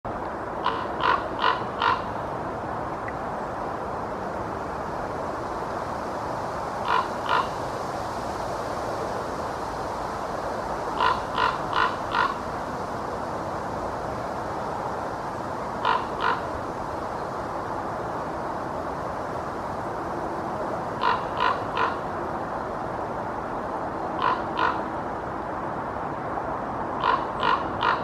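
Common raven calling: short croaks in bursts of two to four, each burst a few seconds apart, over a steady background hum.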